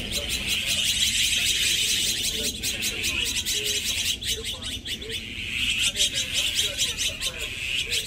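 A flock of azure-winged magpies calling together in a dense, rapid, harsh rasping chatter, many birds at once. It eases briefly about halfway through, then builds again.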